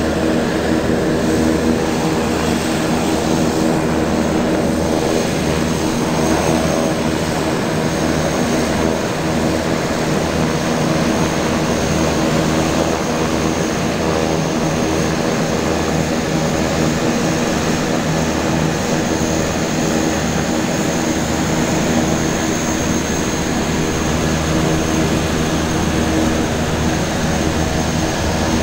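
Aircraft engine running steadily at a constant pitch, with a thin high whine above the low hum.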